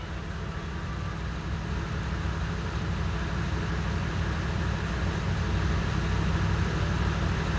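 Steady engine drone with an even hiss over it.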